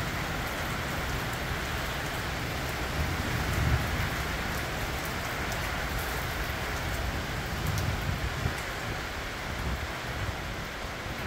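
Rain falling steadily during a storm, an even hiss of drops on surfaces, with low rumbles swelling briefly about three to four seconds in and again near eight seconds.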